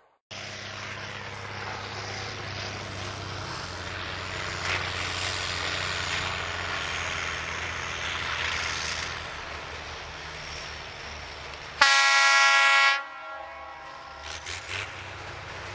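Narrow-gauge diesel railcar sounding its horn in one loud blast of about a second, some twelve seconds in, over the steady hum of its engine as it approaches.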